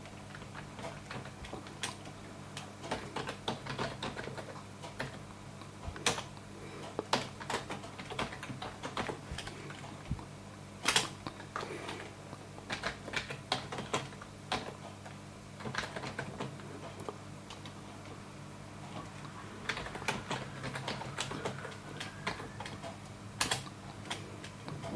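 Computer keyboard typing in irregular runs of keystrokes with short pauses, a few keys struck harder than the rest, over a steady low hum.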